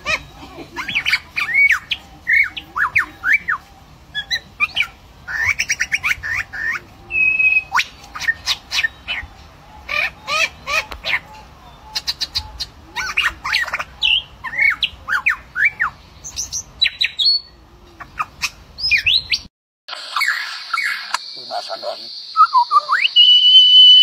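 A lyrebird sings a fast, varied string of mimicked calls: quick whip-like sweeps, chirps, rapid clicking rattles and short held whistles. About twenty seconds in, the sound changes to another stretch of mimicry with a steady high tone behind it and a held whistle near the end.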